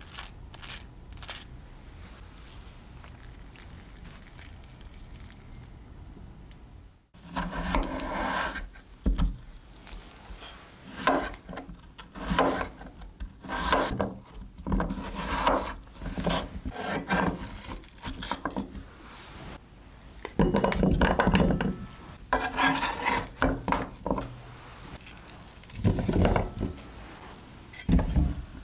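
Starting about seven seconds in, a knife slices through peeled raw potatoes against a cutting board, one stroke after another about once a second. Near the end, the cut potato pieces clatter into a bowl.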